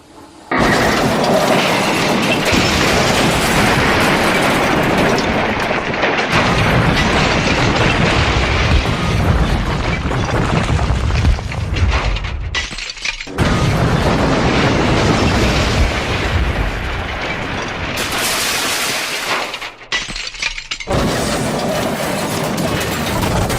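Train crash sound effects: loud, sustained crashing and smashing with breaking and shattering. It comes in three long stretches, broken by short pauses about halfway through and again near the end.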